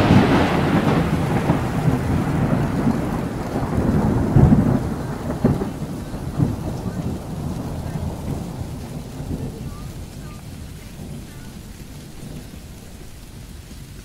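Rolling thunder from a close lightning strike: loudest at the start, with another swell about four seconds in, then dying away over about ten seconds. Steady heavy rain hisses on the car underneath, heard from inside the car.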